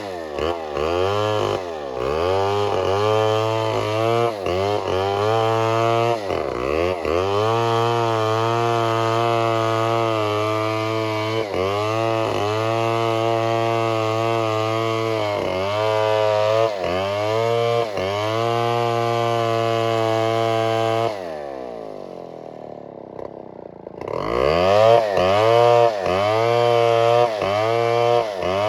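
Two-stroke chainsaw running hard, its engine pitch dipping and recovering again and again. About 21 seconds in it drops to idle, then revs back up near 24 seconds.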